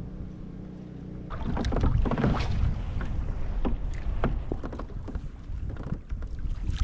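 Water splashing and slapping against a kayak in strong wind, in irregular strokes that grow louder about a second in. Wind rumbles on the microphone underneath.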